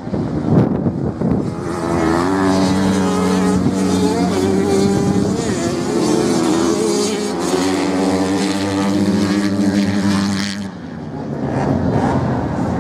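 A dirt bike's engine running at a steady, slightly wavering pitch as it rides past on the sand, then fading away near the end, with wind on the microphone.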